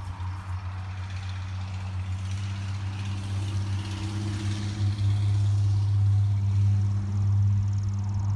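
A low, steady engine hum that grows louder about five seconds in.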